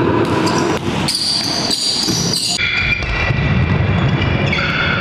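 Basketball game in play: a ball dribbling on the court amid crowd noise, with a few long, steady high tones held in the second half.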